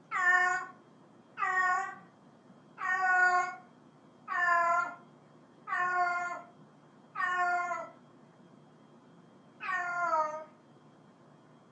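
Domestic cat meowing repeatedly, seven drawn-out calls about a second and a half apart, each sliding down a little at its end, with a longer pause before the last.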